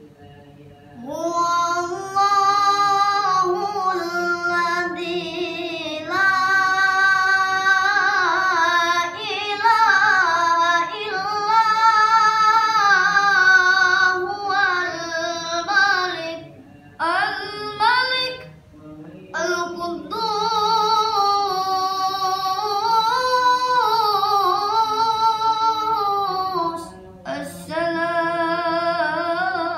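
A child's high voice in melodic Quran recitation (tilawah), holding long ornamented phrases with wavering pitch and a few short breaks for breath.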